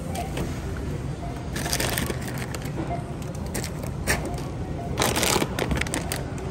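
Groceries and bags being handled at a store checkout: crinkling about two seconds in and again, louder, about five seconds in, with a sharp click around four seconds, over a steady low rumble.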